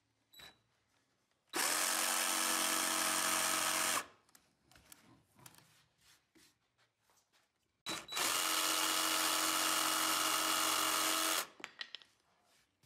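Jigsaw cutting 3/4-inch Baltic birch plywood, finishing the notch cuts, in two runs of about two and a half and three and a half seconds, each stopping abruptly.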